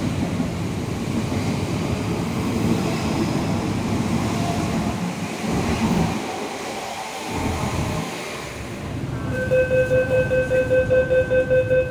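MTR East Rail Line train pulling into the platform, a steady rumble of wheels and traction equipment that eases as it slows. About three-quarters of the way through, a door-closing warning starts: a rapid pitched beeping, about four beeps a second.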